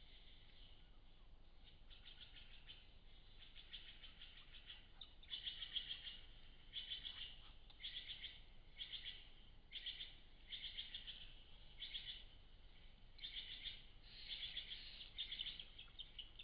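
Faint, high chirping trills: short bursts repeated about once a second, growing stronger about five seconds in.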